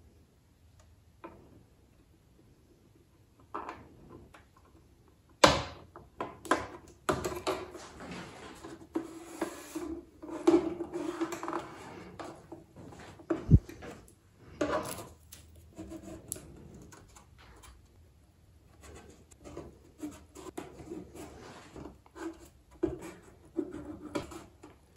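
Hands handling a plastic model-ship deck part, pressing it down onto the hull. After a few quiet seconds come irregular rubbing, scraping and clicking of styrene, one sharp knock in the middle, and masking tape being pulled and pressed on.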